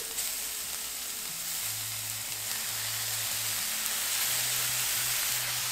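Beef slices sizzling in a hot cast-iron skillet with chopped tomatoes as they are added to the pan, a steady frying hiss that grows a little louder.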